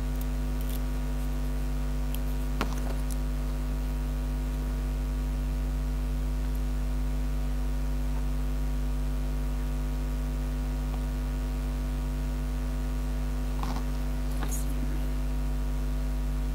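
Steady electrical mains hum running underneath, with a few faint clicks about three seconds in and again near the end.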